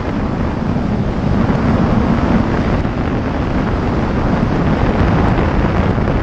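Steady wind rush on the microphone of a sport motorcycle riding at speed, with the bike's engine running beneath it.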